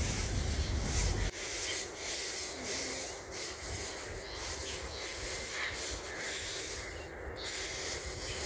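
Dry mixed cattle feed rustling and trickling as handfuls are scooped, tossed and spread by hand. A low rumble cuts off about a second in.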